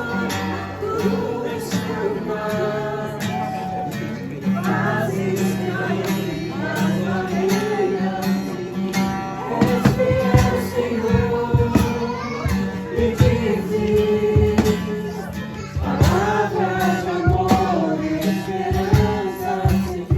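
Gospel worship music with guitar and singing carrying a melody; a steady rhythm of sharp strokes comes in about halfway through.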